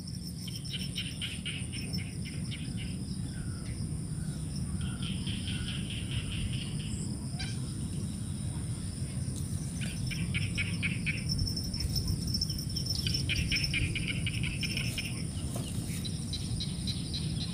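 Bouts of rapid, high chirping trills from birds, four or five of them, each lasting a second or two, over a low steady rumble of outdoor ambience.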